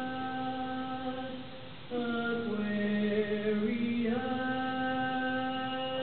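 Women's barbershop voices singing a cappella, holding a sustained chord. About two seconds in the sound dips briefly, the voices re-enter on moving notes, and about four seconds in they settle on a new held chord.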